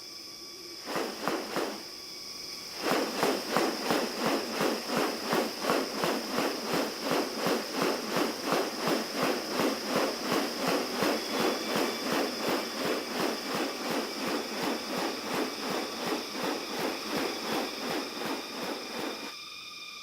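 Rainforest ambience: a steady high insect drone, joined from about three seconds in until just before the end by a louder, rapid, even train of rasping pulses, several a second.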